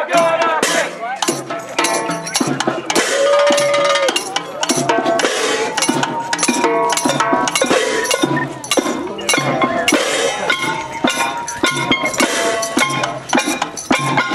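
Protest crowd's noise-making: dense, irregular clanking and banging of handheld noisemakers and percussion, with voices shouting over it.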